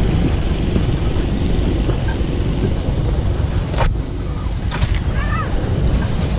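Chevy solid-axle-swap mud truck driving along a sandy trail: steady engine and drivetrain rumble, with a single sharp knock about four seconds in.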